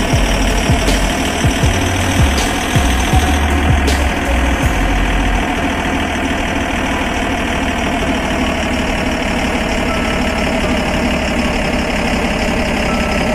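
A steady engine-like drone, with dull thumps and knocks over the first five seconds, running on evenly until it cuts off suddenly at the end.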